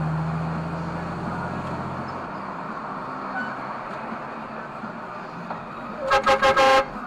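Car driving on a wet road, heard from inside: steady tyre and road noise with a low engine hum that fades about two seconds in. Near the end a car horn sounds in a rapid series of short honks.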